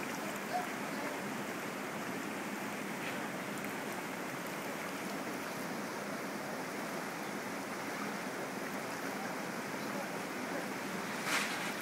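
River rapids rushing steadily through a rocky channel, with a short louder hiss near the end.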